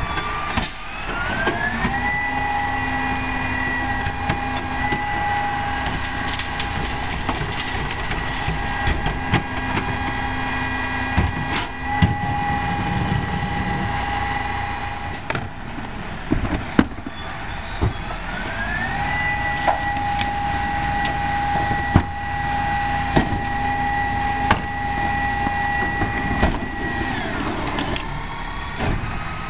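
Peterbilt 320 garbage truck's engine speeding up to drive the Heil 5000 rear loader's hydraulics as the packer cycles. A high whine rises, holds steady for long stretches and falls away, twice. Carts and trash knock and clatter against the hopper.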